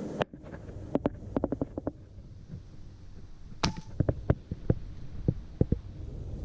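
Airsoft gunfire: a series of sharp snaps, irregular and some in quick clusters.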